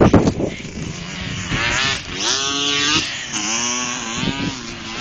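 ATV engine revving up twice, its pitch rising each time, about a second and a half in and again past the three-second mark.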